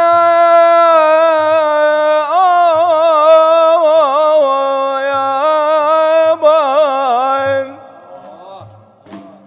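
A male devotional singer holds a long high note in an Iraqi mawwal, then breaks into a wavering, ornamented melisma without words that dies away near the end. Soft, low frame-drum beats sound faintly beneath.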